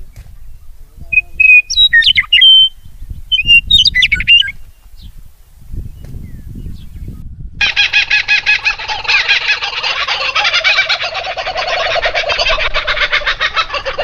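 Short whistled chirps from an adult songbird in the first few seconds. From about halfway through come the nestlings' begging calls, a loud, rapid, continuous chattering as they are fed at the nest.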